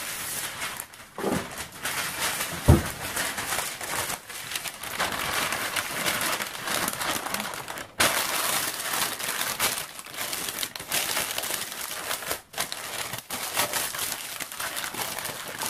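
Baking paper crinkling and rustling as it is folded and pressed into a metal loaf tin to line it, with a single dull thump a little under three seconds in.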